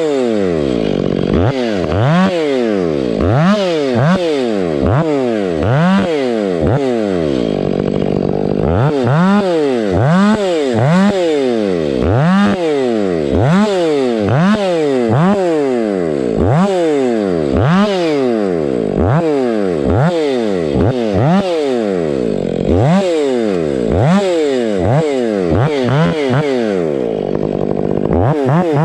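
Stihl 500i fuel-injected two-stroke chainsaw bucking firewood. Its engine speed dips and recovers over and over, about once a second, as the chain loads in the cut and the throttle is worked.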